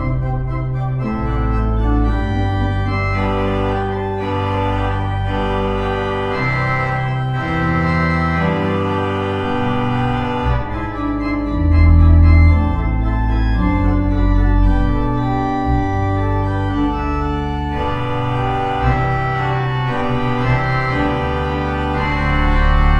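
Organ postlude at the end of a church service: full sustained chords over a bass line that moves from note to note, played without a break and swelling slightly about halfway through.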